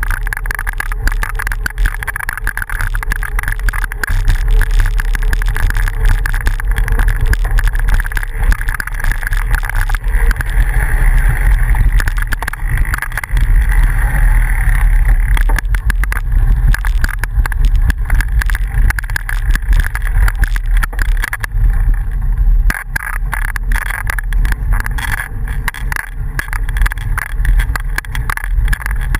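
A bicycle riding on a dirt road, heard from a camera on the bike: a loud, steady rumble of tyres on the dirt and wind on the microphone, with constant fine rattling.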